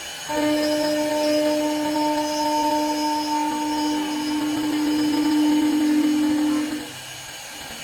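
Spindle motor of a four-axis multi-process CNC wood lathe running with a steady whine while it machines helical grooves, stopping abruptly near the end.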